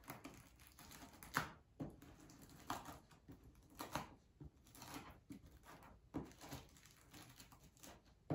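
Fingers flipping and brushing the reversible sequins on a toy egg's heart patch: faint, irregular scratchy taps and rustles.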